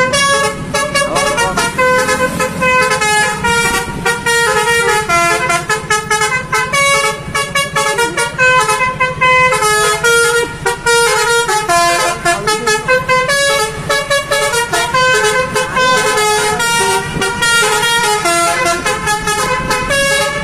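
Basuri multi-tone musical bus horn ("telolet") playing a melody of quickly changing stepped notes, over a steady low hum.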